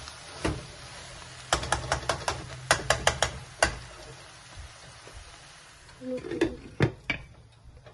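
Metal ladle stirring cooked cabbage in a metal pan over a faint sizzle, with a quick run of clinks and scrapes against the pan from about a second and a half in. Near the end a glass lid is set down on the pan with a knock.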